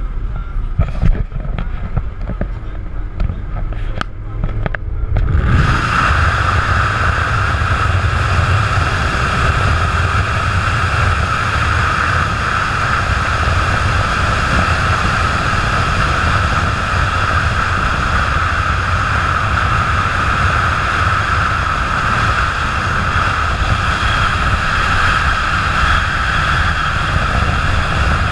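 Wind rushing over a camera mounted on the outside of a moving Audi R8, with a steady low road rumble beneath. It cuts in abruptly about five seconds in, replacing quieter in-cabin driving sound with a few light knocks.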